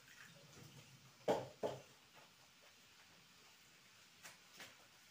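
Quiet room tone with two short knocks close together about a second in, and two fainter ones near the end.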